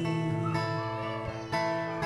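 Worship band music between sung lines: acoustic guitar strumming over held chords, with a fresh strum about one and a half seconds in.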